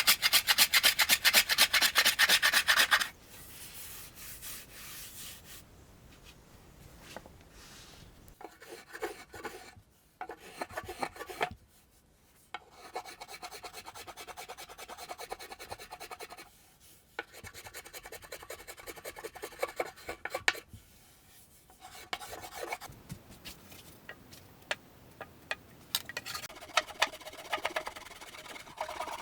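Wood being shaped by hand with a rasp: rapid back-and-forth rasping strokes, loud for the first few seconds, then softer runs of strokes with short pauses, louder again near the end.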